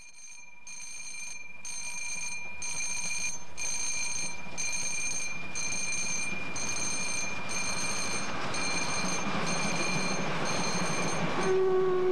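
Level-crossing warning bell ringing in regular pulses, about once a second, while a steam locomotive hauling passenger coaches approaches and grows louder. Near the end the locomotive's steam whistle starts a long blast.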